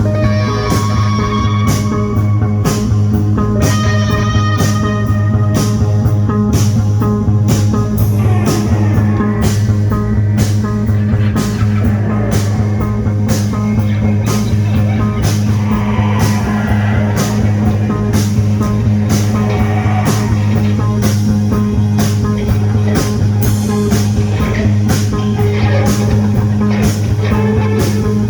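Rock band playing psychedelic rock: guitar over a held bass note and a steady drum beat.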